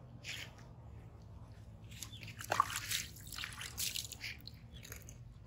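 Water splashed by hand over a wet baby monkey, running and dripping off onto a wooden bench and concrete in irregular splashes from about two seconds in. A short rising squeak about halfway through.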